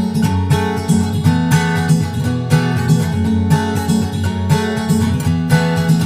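Background music: acoustic guitar strummed in a steady rhythm.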